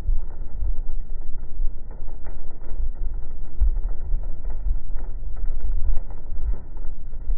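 Car driving on a rough rural road, heard inside the cabin: a steady low rumble of road noise with uneven surges as the car rides over the bumps.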